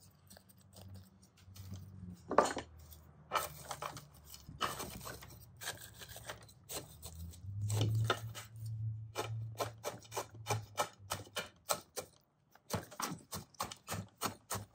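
Coarse granular bonsai soil scratching and clicking as a chopstick is jabbed down and worked among the roots in a shallow pot: a string of short gritty scrapes and clicks, coming faster, about three or four a second, near the end, over a low hum that is strongest about halfway.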